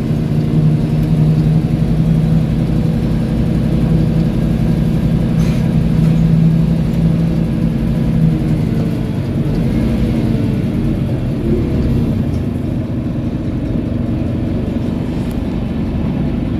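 Rear-engined 2010 Scania K230UB bus's diesel engine running as the bus drives, heard from the rear seats inside the cabin. A steady engine drone is strongest for the first half, then eases off with a shift in pitch a little past halfway.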